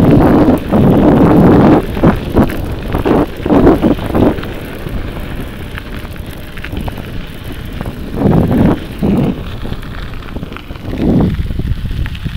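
Wind buffeting the microphone in gusts over a steady low rumble, with louder surges near the start, about a third of the way in, and twice near the end.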